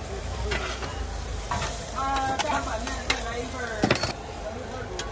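Egg-filled pancake frying on a hot griddle, sizzling steadily, while a metal spatula scrapes and taps sharply on the griddle several times.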